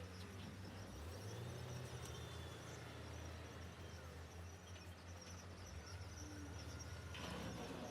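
Faint, steady low rumble of heavy-machinery engines working at a distance, its pitch stepping up about a second in, under a steady high chirring of insects. A broader swell of machine noise comes in near the end.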